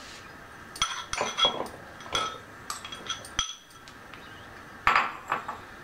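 A steel spoon clinking against glass and steel bowls as raw mango pieces are scooped from one into the other: a string of sharp clinks with short ringing, the loudest about five seconds in.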